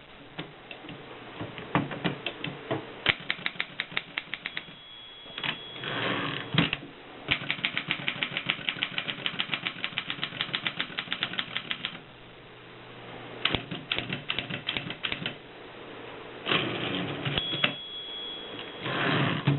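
Mercedes typewriter being typed on, with fast runs of key strikes. Twice a short high ring of the margin bell comes, followed by the rattle of a carriage return.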